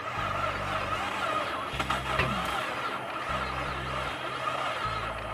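The 2008 Cadillac CTS4's LLT 3.6 L V6 running roughly with an uneven, skipping beat. It is misfiring on every cylinder because its cam timing is off after a skipped timing chain.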